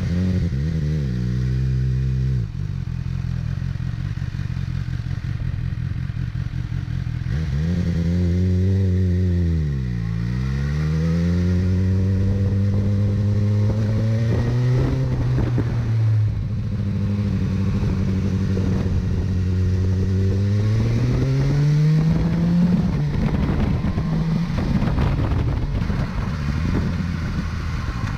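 BMW S1000R's inline-four running through its stock Akrapovic titanium slip-on exhaust. The engine speed drops and rises smoothly a few times between steadier stretches.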